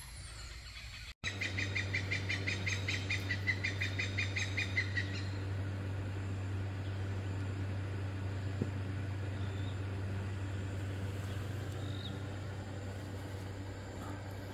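A bird calling a rapid series of short, evenly spaced notes, about five a second, for about four seconds. A steady low hum runs underneath.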